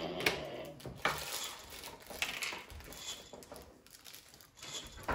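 Small plastic Lego pieces clicking and clattering as they are handled and fitted together: a string of separate sharp clicks and rattles.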